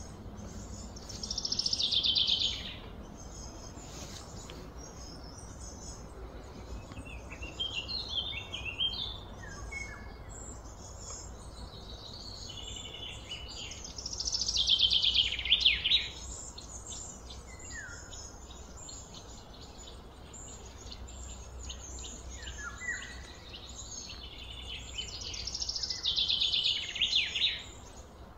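Wild birds singing: a loud, high song phrase comes three times, roughly twelve seconds apart, with shorter descending chirps in between, over a low steady background hum.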